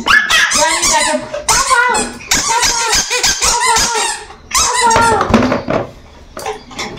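A toddler squealing and shrieking in play, in loud high-pitched bursts through most of the first few seconds, then again briefly before it goes quieter near the end.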